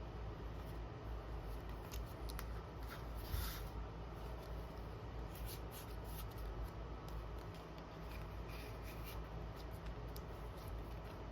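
Close-up hand handling of small craft materials: light rustling and scratching with scattered small clicks over a steady low hum. A louder rustle comes about three seconds in.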